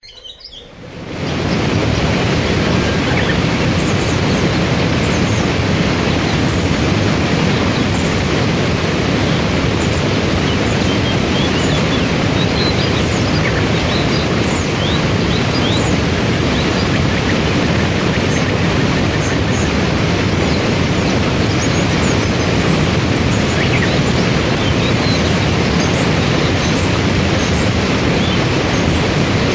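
Waterfall and white-water rapids rushing: a loud, steady roar of falling and churning water that fades in over the first second or two.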